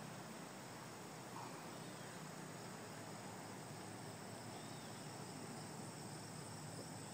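Steady chorus of crickets and other insects, a continuous high trill, over a faint even hiss.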